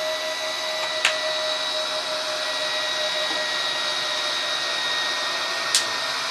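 Gyro flywheel motor in the wheel of a SkyRC 1/4 scale RC motorbike running fast with a steady whine, which the owner puts down to its controller driving it flat out. Two sharp clicks, about a second in and near the end.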